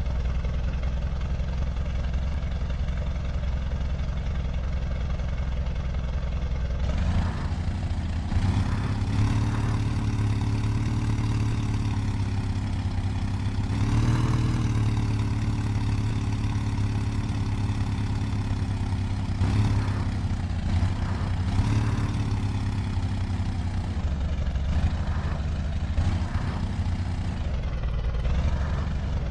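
Off-road 4×4 engine running: a low, steady drone for the first several seconds, then revving higher about seven seconds in and rising and falling in pitch several times.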